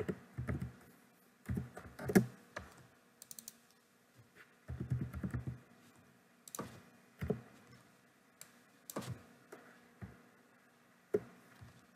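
Computer keyboard being typed on in short, irregular runs of keystrokes with quiet pauses between.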